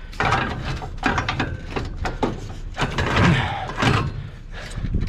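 Irregular metal clanks, knocks and mechanical clicks from scrap metal being handled and secured on a truck.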